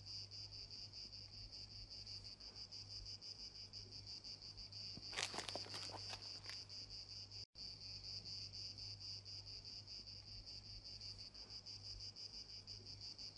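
Faint, steady high-pitched chorus of insects trilling, a continuous pulsing buzz. A brief cluster of clicks about five seconds in, and the sound drops out for an instant about halfway.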